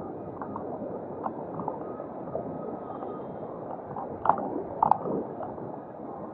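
Steady rolling and wind noise from a lithium-battery powered wheelchair travelling along a paved path, with a few short knocks or rattles a little past the middle.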